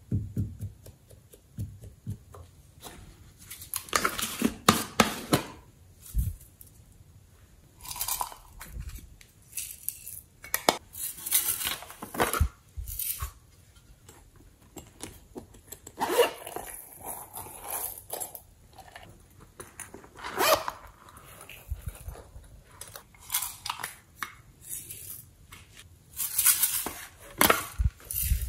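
Hard plastic makeup cases being handled and tapped as loose glitter is shaken out of them onto slime: irregular bursts of clattering, tapping and scraping with short pauses between.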